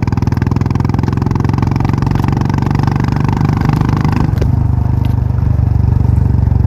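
Motorcycle engine running steadily under the rider while cruising, a fast, even pulse of firing strokes. About four seconds in, its sound turns lower and duller.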